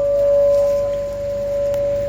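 A struck bell ringing on as a single steady tone.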